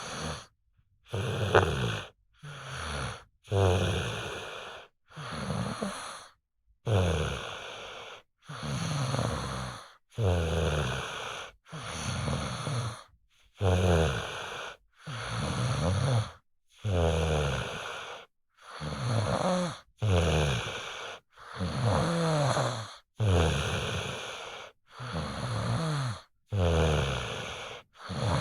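Snoring: a long run of short, rasping snores, each about a second long and dropping in pitch, with dead silence between them.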